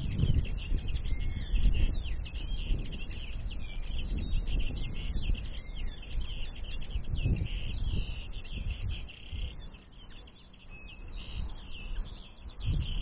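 Many small songbirds twittering in a dense, unbroken chatter of short chirps and trills, with an uneven low rumble underneath.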